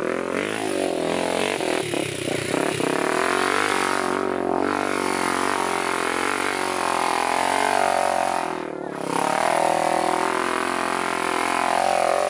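Sport ATV engine running hard at high revs, dropping briefly in pitch twice, about four and about nine seconds in, before climbing again.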